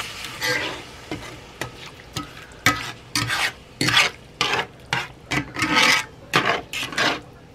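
Slotted metal spatula scraping and stirring through gravy against a cast iron skillet. It starts with a few separate scrapes, then about two strokes a second from a few seconds in.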